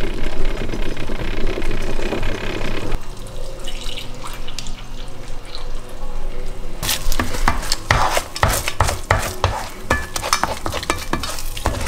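A coffee maker bubbling and hissing as the coffee comes through, loudest in the first three seconds. From about seven seconds in, pans, dishes and utensils clatter with a run of sharp knocks.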